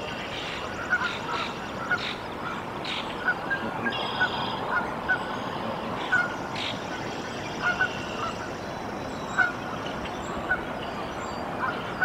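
Canada geese and their newly hatched goslings calling at the nest: many short calls, about one every half second, over a steady background hiss.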